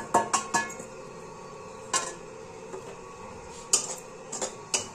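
A steel bowl knocks against a steel kadhai as it is emptied: a quick run of metal clinks, then a single knock about two seconds in and a few more clinks near the end.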